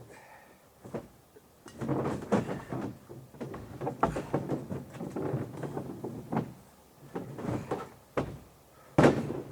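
Scraping and knocking as a heavy moose carcass is dragged and pushed onto a pickup truck, with one loud thump near the end.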